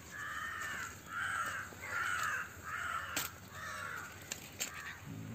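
A crow cawing, a series of about five harsh caws roughly a second apart, the last one weaker.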